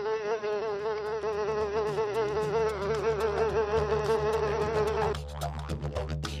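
Buzzing of a blowfly, a loud wavering buzz that stops abruptly about five seconds in. Scattered clicks and a low steady hum follow near the end.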